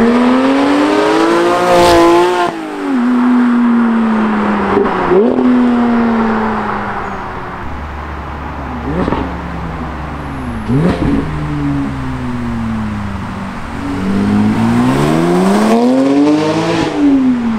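2018 Porsche GT3's naturally aspirated 4.0-litre flat-six through a Brooke Race Exhaust system, revving hard as the car drives past. The revs climb and drop several times, with two short sharp spikes about halfway and another long climb near the end.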